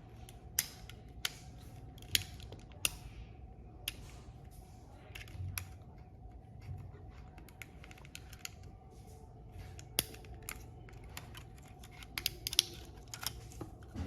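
Irregular sharp clicks and light taps of small plastic parts and tools being handled while working on an opened computer mouse. There is a quick cluster of clicks near the end.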